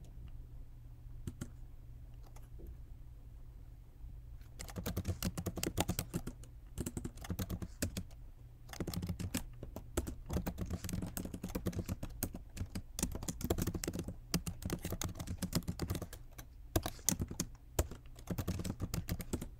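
Typing on a computer keyboard: quiet for about four seconds, then quick runs of keystrokes broken by short pauses.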